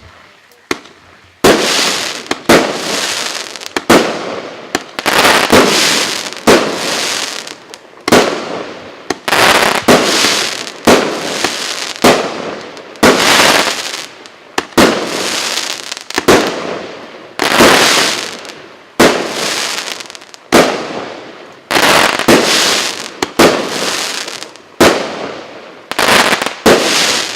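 A 19-shot firework cake battery of 1.1-inch tubes firing in sequence: a sharp bang about once a second, each trailing off in a hiss that fades before the next shot.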